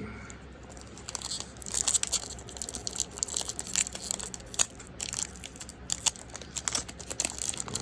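Plastic packaging on Magic: The Gathering product being torn open and crinkled by hand: irregular crackling and rustling that starts about a second in and keeps going in quick, uneven snaps.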